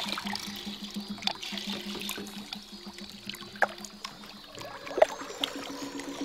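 Water trickling, with scattered sharp drips, the strongest about three and a half and five seconds in, over a low pulsing hum.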